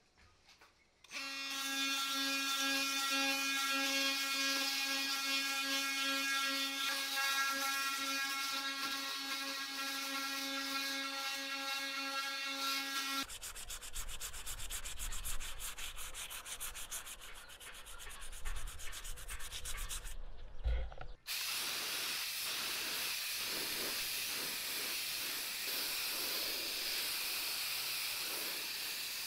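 An electric sander running with a steady whine as it sands body filler on a cast drill press table, for about twelve seconds. Then sandpaper scrubbed by hand in quick strokes. After a brief pause, the steady hiss of a gravity-feed spray gun spraying paint.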